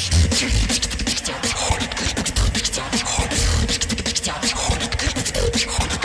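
Human beatboxing through a microphone and stage sound system: deep kick-drum thumps every half second or so under a fast run of sharp snare and hi-hat clicks made with the mouth.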